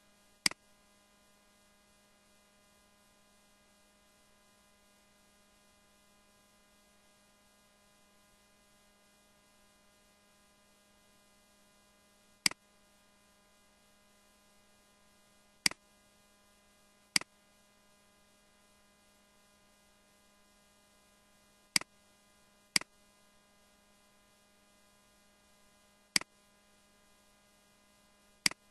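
Computer mouse clicking: eight single, sharp clicks at uneven intervals, over a faint steady electrical hum.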